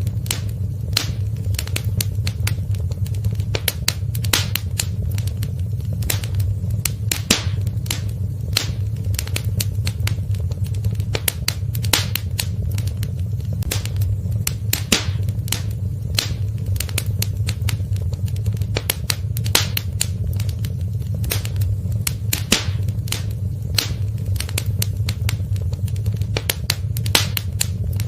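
Wood fire in a fireplace crackling, with sharp irregular pops and snaps, several a second, over a steady low rumble of the flames.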